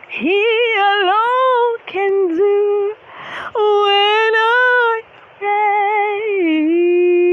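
A woman singing unaccompanied in long, wavering held notes, four phrases with audible breaths between them.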